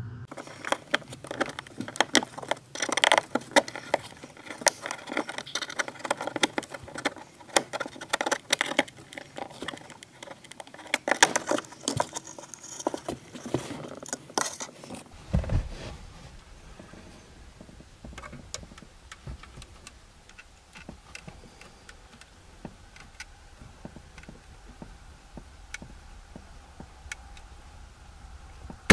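Plastic interior trim panel from a BMW E39's rear pillar handled by hand: a busy run of clicks and rattles from the plastic and its metal clips for about the first half. After that only occasional light ticks over a low steady hum.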